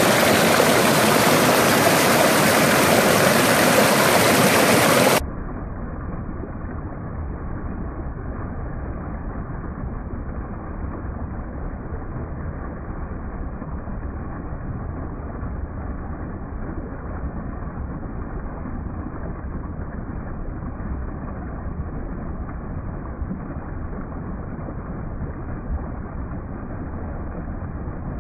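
Small waterfall pouring over rock into a pool: steady rushing, splashing water. About five seconds in the sound turns suddenly quieter and muffled, losing its hiss, and stays that way.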